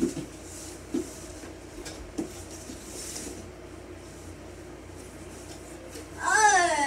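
Faint rubbing and handling noises with a few soft knocks over a steady low hum. Near the end a loud, high-pitched voice begins, swooping up and down in pitch.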